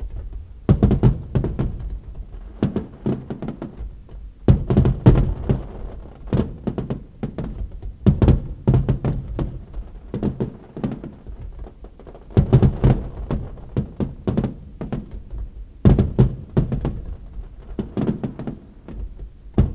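Fireworks display: volleys of aerial shells bursting in rapid clusters of bangs, the loudest volleys coming every couple of seconds. Heard from inside a parked car through a dashcam's microphone.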